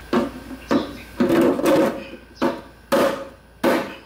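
A heavy chopping knife hacking into the hard plastic of a portable jacuzzi pump unit: about six sharp chops, roughly one every half second, one of them followed by a short clatter.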